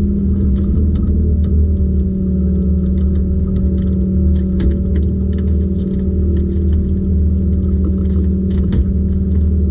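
Boat motor running steadily at a constant low speed, a steady low hum. Light clicks and taps of gear being handled in the aluminium boat come and go over it.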